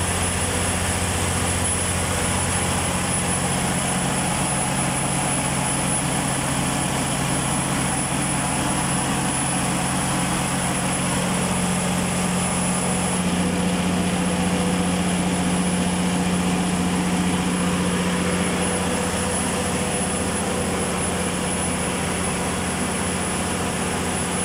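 Perkins 2200-series six-cylinder diesel generator set running steadily after a general overhaul, with a loud, even engine drone and hum. Its tone shifts slightly about halfway through.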